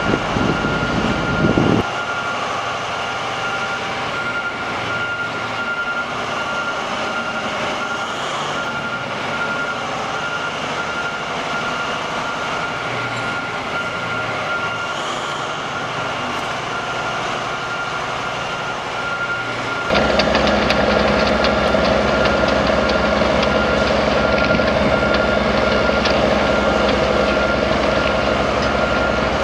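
Liebherr T 284 haul truck running, its diesel engine a steady mechanical rumble with a thin steady high tone over it. About twenty seconds in, the engine becomes much louder and deeper with an even, rapid firing pulse.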